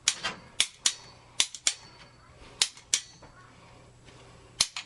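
A series of sharp snaps or pops at irregular intervals, about ten in all, most of them in the first three seconds and one more near the end, over a faint steady low hum.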